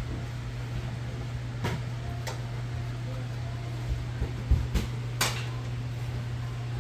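Light clinks and knocks of a plate and dishes handled on a kitchen counter, a few short sharp ones, the loudest about five seconds in, over a steady low hum.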